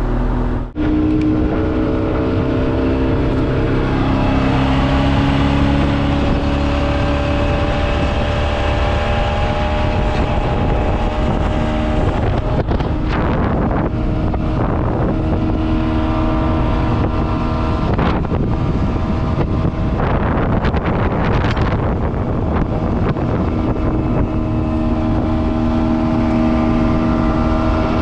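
Old 90 hp Nissan outboard motor driving a boat under way, picking up revs over the first few seconds and then running steadily at speed. Wind buffets the microphone in bursts through the middle.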